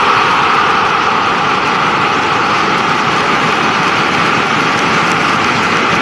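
Large stadium crowd cheering a goal, a steady dense wall of noise that holds at an even level.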